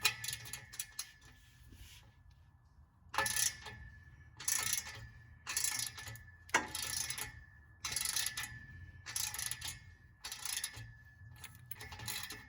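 Hand socket wrench ratcheting in repeated short bursts of clicks, about one swing a second, as an exhaust bolt is worked loose.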